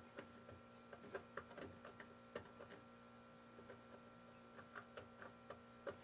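Faint, irregular ticks and light scrapes of a metal pick scratching the cast aluminum frame of a sewing machine through a drop of vinegar.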